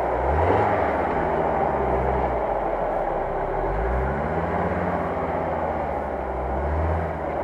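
UAZ-469 off-roader's engine revving up and dropping back in about three surges as the 4x4 pulls itself out of a muddy, water-filled rut.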